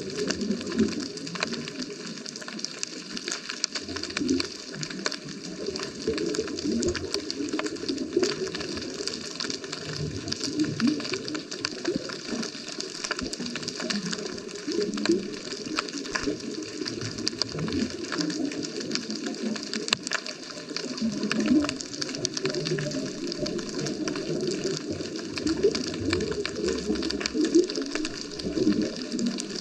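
Underwater ambience as picked up by a GoPro in its waterproof housing: a dense, steady crackle of small clicks over low, uneven bubbling and water movement.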